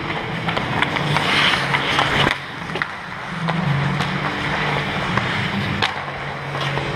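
Ice hockey skate blades scraping and carving on rink ice close by, with a louder hiss of skates about a second in. Scattered sharp clicks of hockey sticks on the ice come through it.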